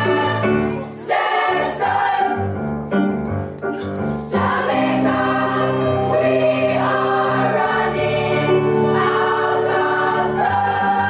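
School choir singing held chords in harmony. The sound thins and drops a little about a second in, then swells back fuller at around four seconds.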